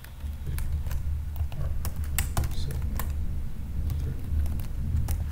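Computer keyboard typing: irregular keystroke clicks at a brisk, uneven pace, over a steady low hum.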